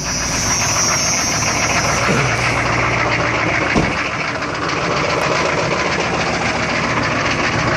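GM pickup's diesel V8 idling steadily just after a cold start at 7 °F without the block heater plugged in. A brief knock comes about four seconds in.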